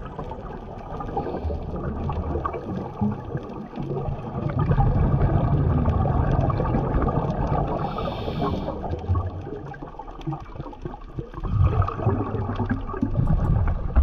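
Underwater audio of a scuba diver breathing through a regulator: uneven, gurgling rushes of exhaled bubbles that swell and fade, with a brief hiss about halfway through.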